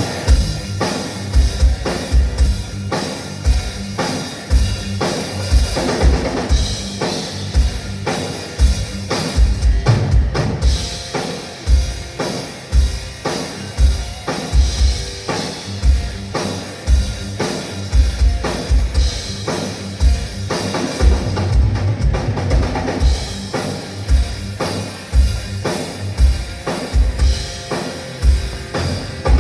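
Rock drum kit played alone as a sound-check groove: a steady beat of kick drum and snare with cymbals over it.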